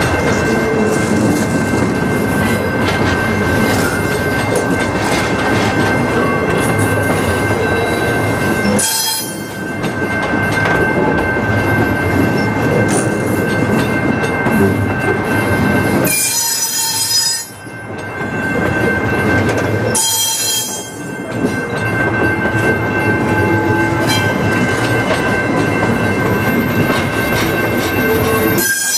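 Double-stack intermodal container cars rolling past close by, the wheels rumbling on the rails with a steady high-pitched wheel squeal held throughout. The sound dips briefly three times, about nine, seventeen and twenty-one seconds in.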